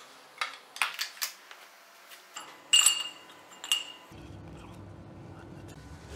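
Metal parts clinking and knocking against the housing of a ZF 16S 1820 TO truck gearbox as it is reassembled: a run of sharp taps, with the loudest pair of clinks, which ring briefly, near the middle. A steady low hum takes over from about four seconds in.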